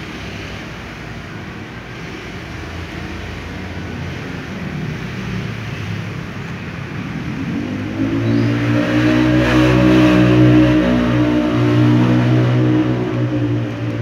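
A motor vehicle engine running nearby, a steady low hum that grows louder from about halfway through, is loudest for several seconds and then eases off slightly near the end.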